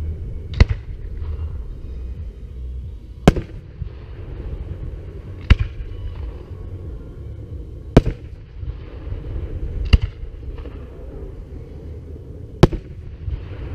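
Aerial firework shells bursting: six sharp bangs, one about every two to three seconds, over a steady low background rumble.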